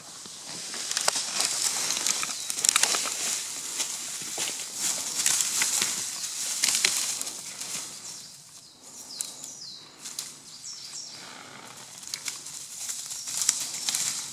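Dry leaves and twigs crackling and rustling on the forest floor as something moves through the undergrowth, loudest in the first half. A few faint high chirps come about two-thirds of the way in.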